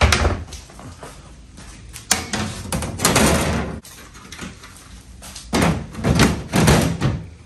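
Clattering and scraping of an aluminum bench top and a plastic hatch being handled, ending in several thumps and scrapes as the plastic hatch is set down into the freshly cut opening.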